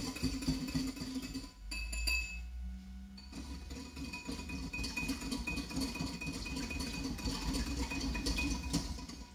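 Wire whisk stirring glaze in a ceramic bowl: a fast, steady clinking of the wires against the bowl, briefly pausing about two seconds in. Background guitar music runs underneath.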